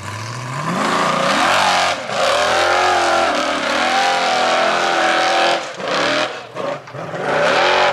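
Formula Offroad buggy's engine revving hard at full throttle as the car pulls away up a sandy slope. The revs climb over the first second, hold high, and drop away briefly twice near the end before rising again.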